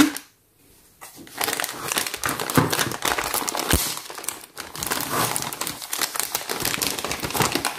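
Clear plastic bag crinkling as hands pull it open and handle the toy pieces inside, starting after about a second of near silence.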